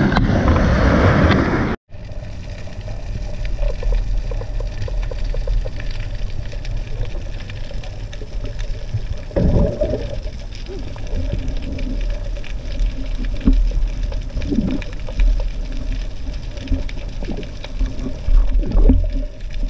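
Water splashing around a freediver at the surface, cut off sharply about two seconds in as the camera goes under. Then muffled underwater sound: a steady low rumble with scattered faint clicks and crackles, and a brief louder swell about halfway through.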